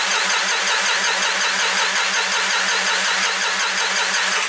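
Starter cranking a John Deere 5400's three-cylinder diesel with a fast, even rhythm, then cutting off suddenly. The engine does not fire: after the fuel filter change, air in the fuel system keeps it from starting.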